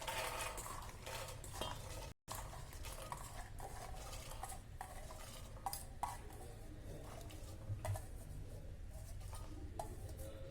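Kitchen utensils clinking and scraping against a pressure cooker as soaked, sprouted rajma, chana and moong are put into it, with scattered light knocks.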